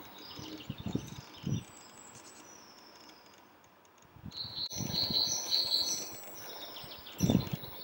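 Small birds chirping in short high bursts, with a quick run of chirps about halfway through. A couple of dull low thumps come near the start and near the end.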